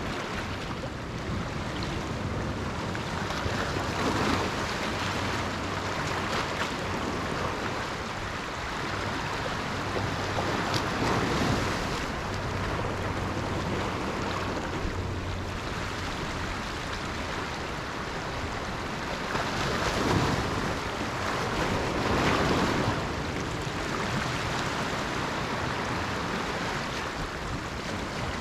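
Sea waves washing onto the shore, a steady rushing surf that swells louder every few seconds as individual waves break. A faint low hum runs under it through the middle part.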